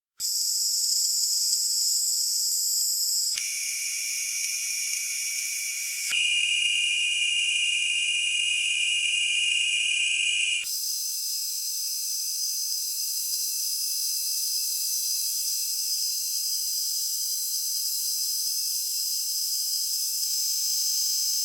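Cicadas droning in a steady, high-pitched buzz. The pitch and loudness of the chorus change abruptly three times, about three, six and ten seconds in.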